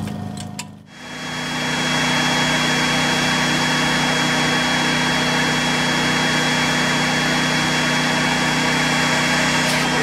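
Backpack vacuum cleaner running steadily with a motor hum and a thin high whine, its hose held to a tree cavity to suck out a flying squirrel. It comes up to full level about a second in.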